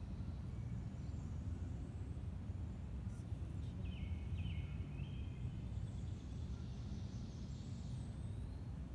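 Woodland ambience: a steady low rumble with a few birds calling, short calls about four seconds in and thin high chirps later on.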